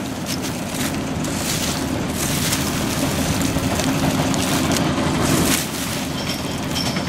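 Large diesel engine running steadily under a broad rushing noise, with a constant low hum. The source is most likely the tub grinder's 325 hp John Deere power unit.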